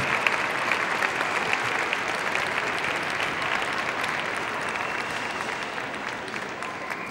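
Audience applauding, a dense patter of clapping that slowly dies away.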